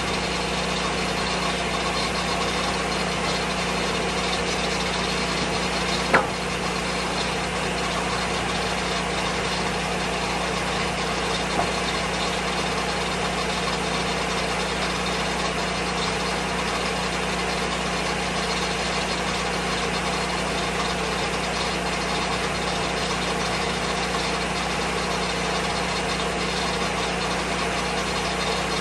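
Lucas Mill 10-30 portable sawmill's petrol engine running at a steady speed, with a sharp click about six seconds in and a fainter one a few seconds later.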